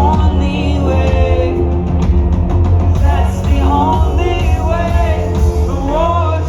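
Live rock band playing loudly with heavy bass under a sung melody line that glides up and down.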